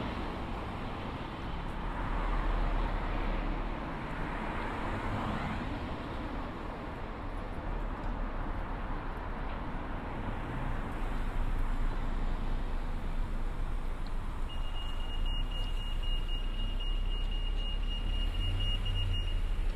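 Road traffic passing along a village street, the noise rising and falling as vehicles go by. About three-quarters of the way in, a steady high-pitched electronic tone sounds for about five seconds.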